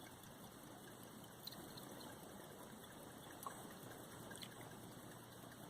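Near silence: faint room tone and hiss, with three tiny clicks spread through it.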